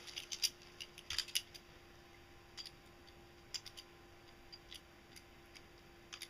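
Light metal clicks and snips from locking pliers working a short copper wire and terminal. There is a quick cluster in the first second and a half, then single clicks every second or so.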